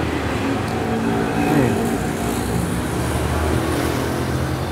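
Passing road traffic: motor-vehicle engines running with a steady low hum, and one engine's pitch falling about a second and a half in.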